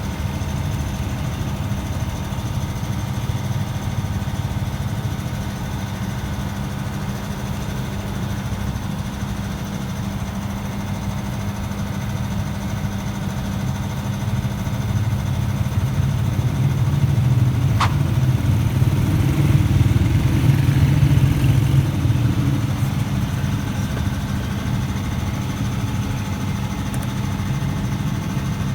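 Old car engine idling steadily, running a little louder for a few seconds about two-thirds of the way through, with a single sharp click near the middle.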